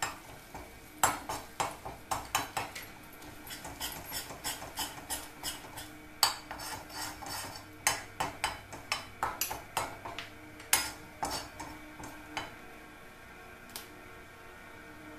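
A metal spatula scrapes and clinks against a metal kadhai as gram flour is stirred and roasted in a little oil. The strokes come as quick runs of sharp scrapes and knocks, several a second.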